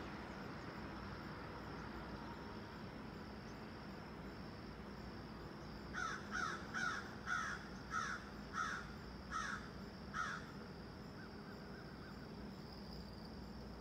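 A crow cawing, a run of about eight harsh caws over some four seconds, spacing out slightly toward the end. Insects trill steadily and faintly in the background.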